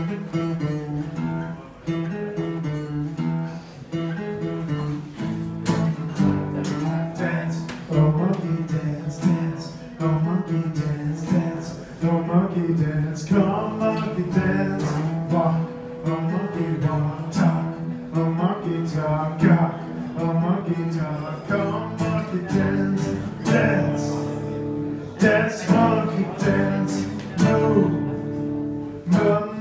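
Acoustic guitar strummed in a steady rhythm: a solo guitar intro to a song, played live through a microphone.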